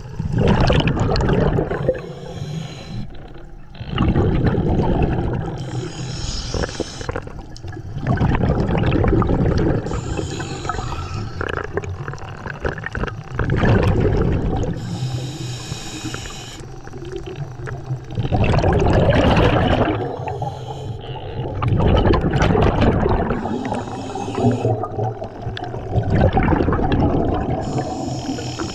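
Scuba diver breathing through a regulator underwater: short hissing inhalations alternate with longer, louder bubbling exhalations, about six or seven breaths at an even pace.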